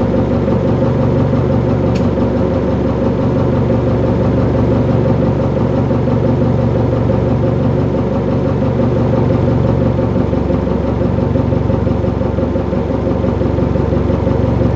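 An engine idling steadily at an even speed, with one brief click about two seconds in.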